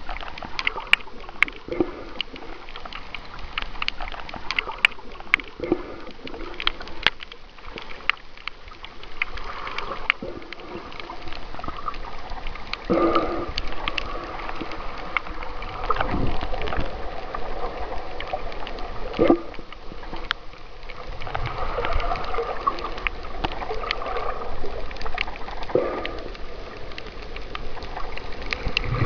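Underwater sound through a Fuji waterproof camera: water gurgling and sloshing, with many sharp clicks and crackles throughout and a few dull thumps.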